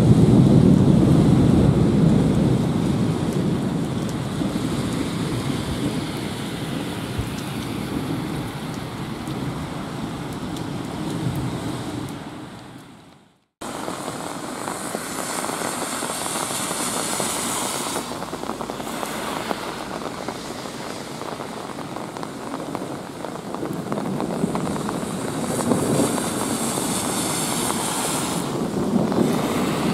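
Heavy rain pouring during a thunderstorm, with a low thunder rumble dying away at the start. After a break about halfway, the rain goes on and cars swish past twice on the waterlogged road.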